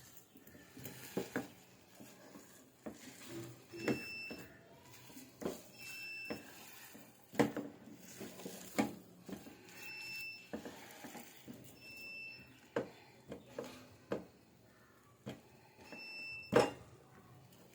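Dishes and utensils clattering with irregular knocks and clinks, while a short, high electronic beep sounds five times at intervals of about two seconds or more.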